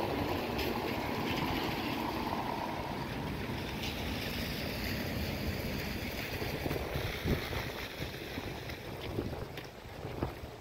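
City street noise: traffic on a wet road, a steady tyre hiss with wind rumbling on the microphone, easing off toward the end, with a few short knocks in the last few seconds.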